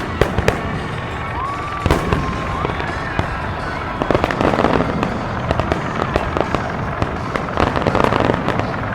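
Fireworks grand finale: shells bursting in rapid, irregular bangs, with thick clusters of crackling about four seconds in and again near the end.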